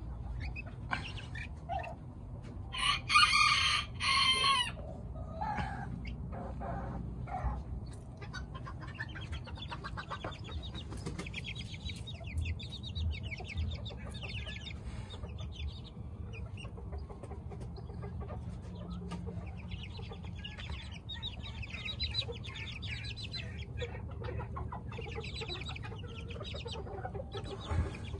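Micro Serama bantam hen and chicks calling and clucking. About three seconds in comes one loud, drawn-out call lasting about two seconds, the loudest sound here; after it the birds keep up a run of quick, rippling, chattering calls.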